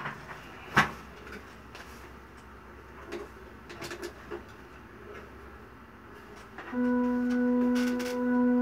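A few light clicks, then about two-thirds of the way in a Hammond XK-series organ comes in with a held chord of several notes.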